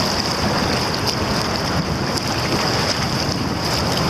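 Rushing whitewater of a river rapid churning around a canoe, a steady noise mixed with wind buffeting the microphone.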